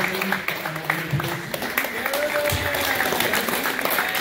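Scattered hand clapping from a small group of people, with voices talking over it.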